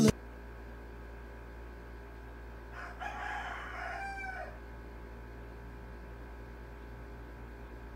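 A rooster crowing once, about three seconds in, for a second and a half, over a steady low hum of room tone.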